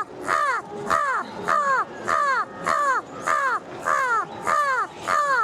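A girl imitating a crow with her voice: a steady run of short caws, about two a second, each falling in pitch.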